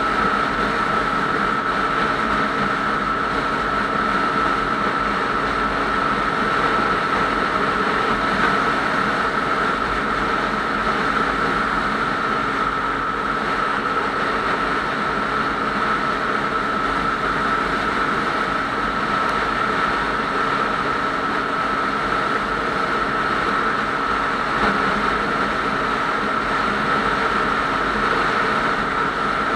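Motorcycle cruising at steady highway speed: an even engine drone with road and wind noise and a steady high whine, unchanging throughout.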